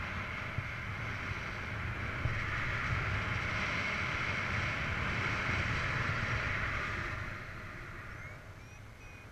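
Airflow rushing past a paraglider pilot's camera in flight: a steady windy rush with a low rumble, easing off about seven seconds in. A few faint short chirps near the end.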